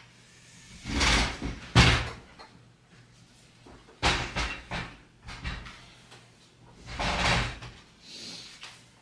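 Handling noises of hard objects being moved on a work surface: three bouts of scraping and rubbing, with a sharp knock about two seconds in.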